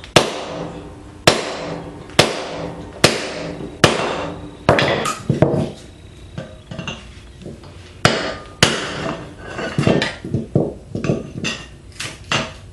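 Hammer striking a hatchet set on the weld of a microwave oven's high-voltage transformer: sharp metal-on-metal blows, each followed by a short ring. Five evenly spaced blows come in the first four seconds, then the strikes turn irregular, with quicker, lighter ones near the end as the weld is split open.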